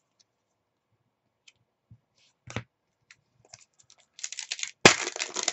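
Trading card pack wrapper being torn open by hand: a single click, then crinkling and rustling from a little past halfway, with a sharp loud tear about five seconds in.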